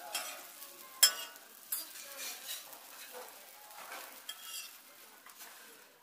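Pancakes sizzling in oil on a flat steel griddle, with a metal spatula scraping and clanking against the griddle plate; the sharpest clank comes about a second in.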